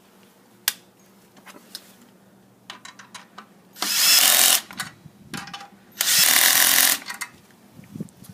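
Power drill with a deep socket run in two short bursts, driving screws home against its torque setting; light clicks and handling knocks come before and between.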